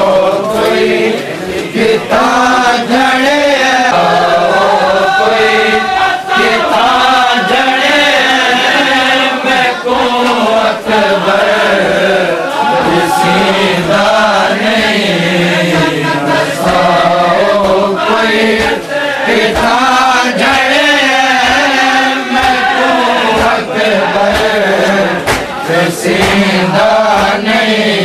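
Men's voices chanting a nauha, a Shia Muharram mourning lament, together, with repeated sharp slaps of matam, hands striking the chest, roughly once a second.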